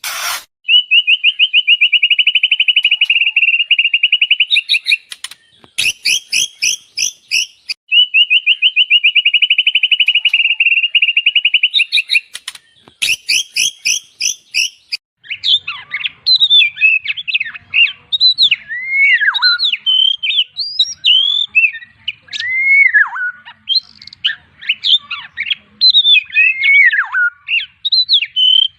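White-rumped shama (murai batu) singing: a long rapid trill, a burst of quick repeated high notes, a second trill and another burst, then from about halfway a run of varied whistled phrases that swoop up and down.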